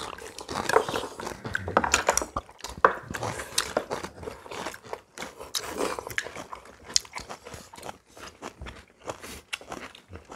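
Several people eating at a table: chewing, crunching and slurping, with chopsticks clicking against ceramic bowls in a run of short, irregular clicks.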